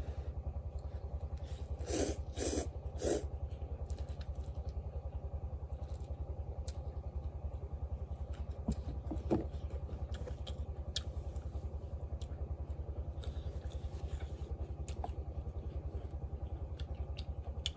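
A small engine running steadily in the background with a fast, even chugging. A few short clatters of eating are heard over it, three close together about two to three seconds in and one more around nine seconds.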